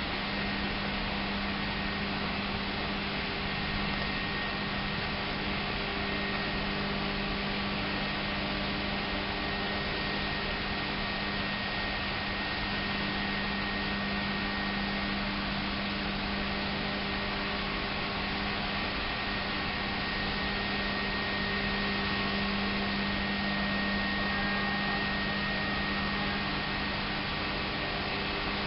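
Steady drone of petrochemical plant machinery: a low hum with a few faint steady tones over a constant hiss, unchanging throughout.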